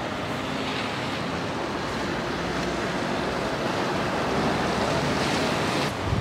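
Road noise of a MAN snowplough-gritter truck driving past on a slushy street: a steady rush of engine and tyres that grows louder in the second half.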